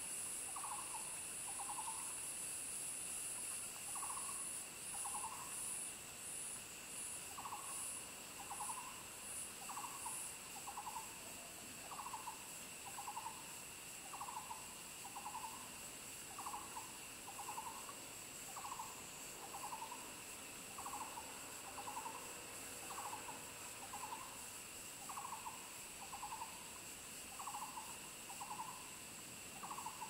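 Short hooting call notes, often in pairs, repeating about once or twice a second, over a steady high drone of insects. A very high insect buzz pulses and stops about ten seconds in.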